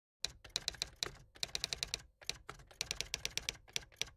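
Typing sound effect: rapid keyboard key clicks in runs broken by short pauses, keyed to text being typed out letter by letter on screen.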